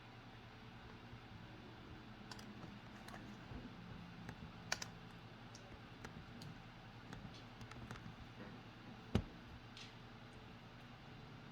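Faint, scattered small clicks and taps, with two sharper knocks about five and nine seconds in, over a low steady hum.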